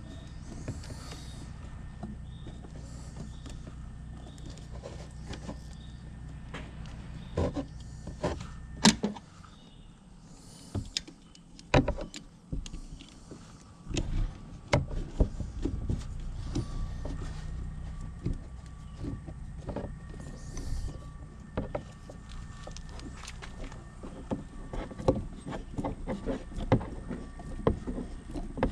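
Hand work on an ATV's plastic body panel and air-intake hoses: scattered clicks, taps and knocks of plastic, rubber and a screwdriver. Under them runs a steady low hum that drops out for a few seconds about nine seconds in.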